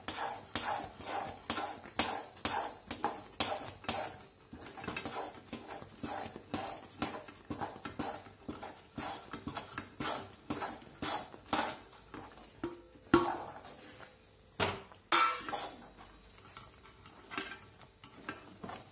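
Steel spoon stirring and scraping a thick mix of spice powder and jaggery syrup around a steel kadai, a stroke about every half second, with a few louder metal clanks against the pan about two-thirds of the way through.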